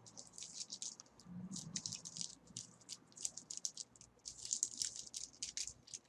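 Hands handling a small plastic figurine and its plastic packaging: irregular crinkling and rustling with small plastic scrapes and clicks, quiet and fairly continuous.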